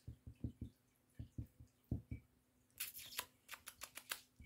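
Faint soft thumps in quick little groups, then a brief burst of scratchy clicking and rustling about three seconds in, as a kitten paws and claws at a fleece blanket on a bed.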